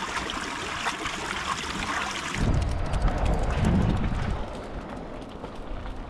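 Steady hiss of flowing water running over a water wheel. About two and a half seconds in it gives way suddenly to low wind buffeting on the microphone, which eases off near the end.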